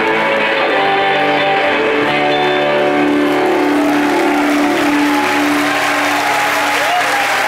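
Live rock band's electric guitars ringing out held chords at the close of a song, with crowd applause and cheering swelling over the last few seconds.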